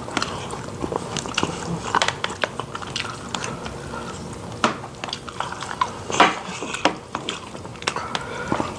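Close-miked chewing and wet mouth sounds from two people eating rice with gravy, with utensils scraping and clicking against the plate; a few sharper clicks stand out.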